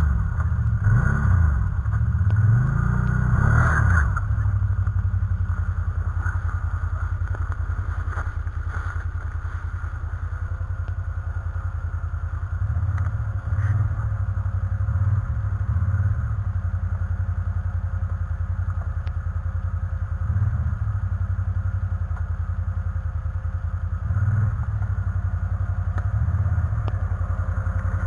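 Can-Am Outlander ATV engine running, revving up and down several times in the first few seconds, then settling to a steady low run with short throttle surges now and then.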